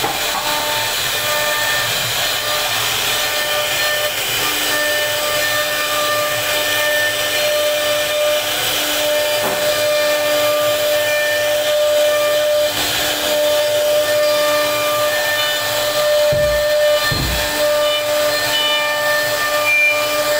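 CNC router spindle running with a steady high whine while the router bit mills a carved relief into a wooden panel, the cutting adding a constant hiss. The whine's tones shift as the bit works, and two low thumps come about three-quarters of the way through.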